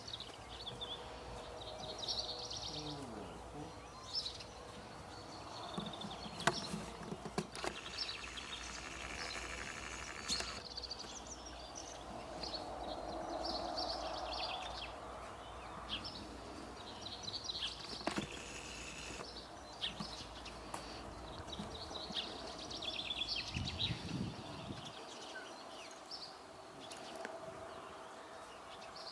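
Small birds chirping and twittering on and off throughout, over a steady low outdoor rumble, with a few sharp clicks.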